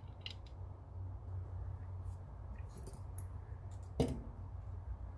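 Faint, scattered metallic clicks and taps as small parts of a Marlin 795 .22 rifle are fitted into its receiver during reassembly, with one sharper click about four seconds in. A faint steady low hum runs underneath.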